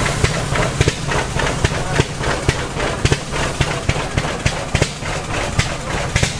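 Antique engines running together, a steady low hum with many sharp, uneven exhaust pops, several a second.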